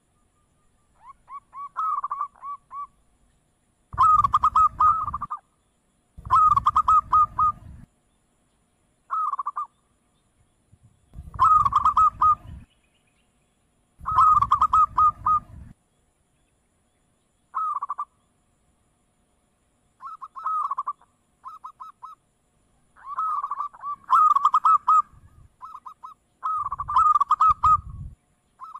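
Zebra dove (perkutut) cooing: short phrases of quick, stuttering coos repeated every one to three seconds.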